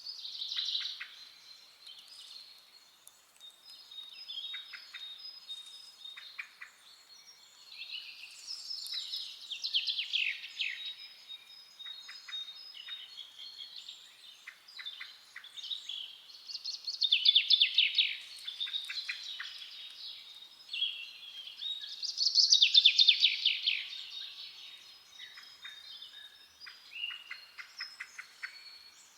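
Several forest songbirds singing in overlapping phrases, with chirps and fast trills. The loudest trills come about two-thirds of the way in and again a few seconds later. A thin, steady high tone runs underneath.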